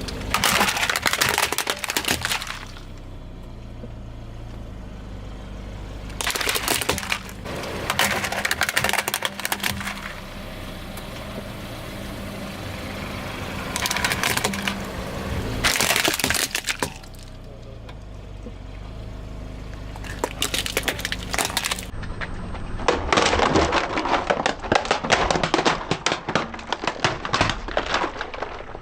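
A car's tyres rolling over brittle objects and crushing them: repeated bursts of cracking and crunching, with a long dense run of crackling in the last few seconds.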